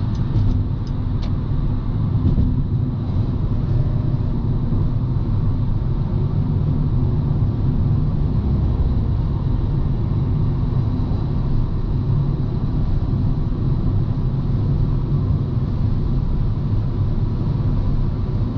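Honda Civic cruising at highway speed, heard from inside the cabin: a steady rumble of engine and road noise.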